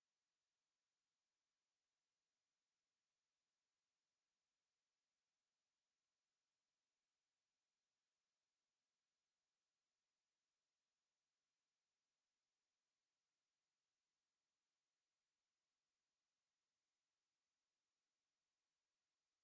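A pure 11132 Hz sine-wave test tone, one very high steady pitch held unchanged at constant level.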